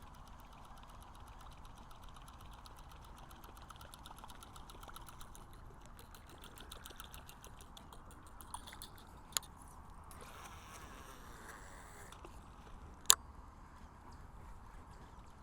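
Fishing reel being cranked, its gears ticking rapidly and evenly, with a few sharp clicks, the loudest about 13 seconds in.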